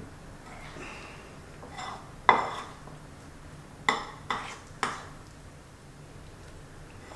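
A metal spoon stirring a thick chocolate and peanut butter mixture in a white ceramic bowl, clinking sharply against the bowl's side four or five times between about two and five seconds in, the loudest clink first.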